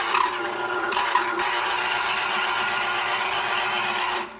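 Small electric citrus juicer running while an orange half is pressed down onto its spinning reamer cone: a steady motor whir with the scraping of fruit on the cone, cutting off suddenly near the end as the motor stops.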